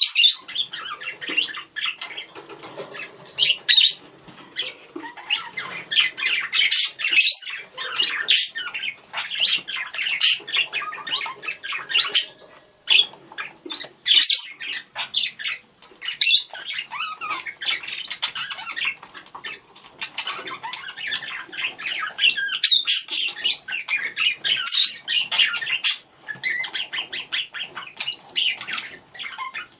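Budgerigars calling to each other: a dense, continuous chatter of chirps, warbles and squawks.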